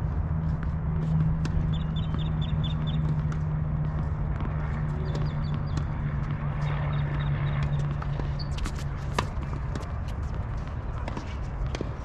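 Outdoor tennis-court ambience: a steady low hum under scattered pops of tennis balls being struck, with a sharper crack a little after nine seconds. A short run of high chirps comes about two seconds in.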